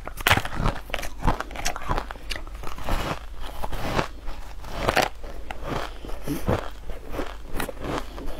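Crunching of ice being bitten and chewed close to the microphone: many sharp, irregular crunches, several a second, as chunks of ice dusted with green powder are broken down in the mouth.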